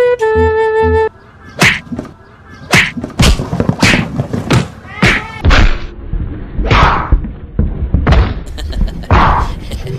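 A brief musical phrase, then an irregular series of about a dozen sharp thuds and whacks.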